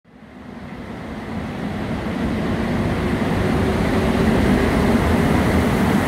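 Train rumbling through a rail station, fading in over the first two seconds and then steady, with a low hum.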